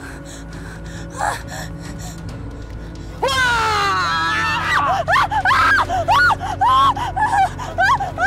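Eerie background music with a steady drone, then about three seconds in a loud, shrill cry breaks in, sliding down in pitch, followed by a quick run of short high-pitched yelps, two or three a second.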